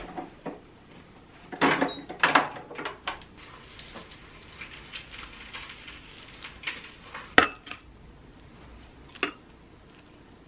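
Dishes and metal cutlery clattering while a meal is made: a burst of clinks and knocks about two seconds in, light taps and scrapes after it, then a sharp clink about seven seconds in and a smaller one near the end.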